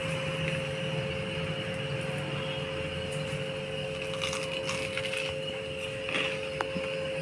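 Faint crunching and chewing as a crisp toasted bread sandwich is bitten into and eaten, with a few small crackles in the second half, over a steady low electrical hum.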